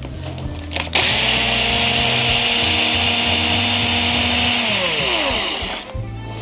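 Electric screwdriver motor starting suddenly, running at a steady speed for about four seconds, then winding down in a falling whine as the trigger is let go, while backing out a screw.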